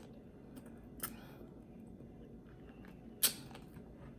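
Quiet eating sounds: a faint click about a second in and a sharper single click a little past three seconds in.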